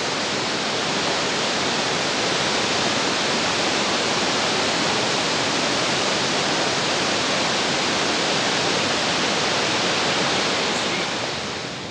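Fast-flowing mountain stream, a steady rush of water, dropping a little in loudness near the end.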